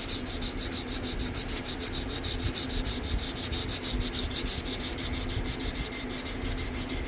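Sandpaper rubbed by hand over a bow's handle in rapid back-and-forth strokes, several a second, taking the last clear coat down to the raw phenolic.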